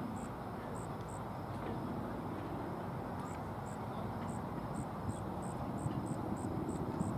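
Open-air ambience: a steady low hum of distant road traffic, with an insect chirping in short, high-pitched pulses about three times a second. The chirping pauses for about two seconds shortly after the start, then resumes.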